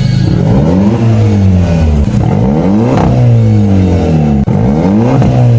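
Car engine revving over and over, its pitch sweeping up and falling back several times, loud.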